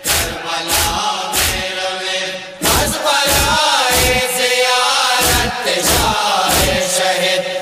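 Group of men chanting a Hazaragi noha (mourning chant) in unison over steady, sharp rhythmic beats, about two a second. The voices get louder about two and a half seconds in.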